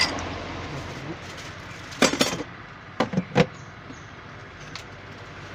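Ice cubes and a steel ladle clinking against a drinking glass: a short cluster of sharp clinks about two seconds in, then two or three more a second later, over a steady low background hum.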